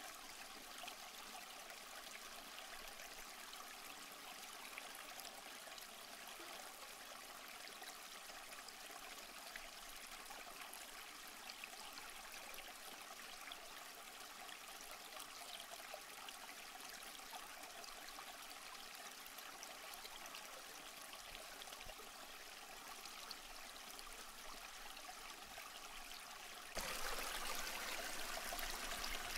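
Goldfish aquarium's aeration and filter: a steady trickle and bubbling of water from rising air bubbles and the filter's flow. It steps up suddenly in level near the end.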